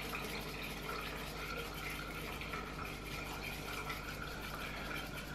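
Steady low background hum with a faint even hiss and no distinct sounds standing out.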